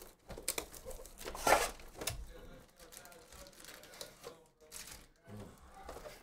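Plastic shrink wrap crinkling and tearing as it is stripped off a sports-card hobby box, then foil card packs and cardboard rustling as the packs are lifted out. Irregular crackles throughout, the loudest about a second and a half in.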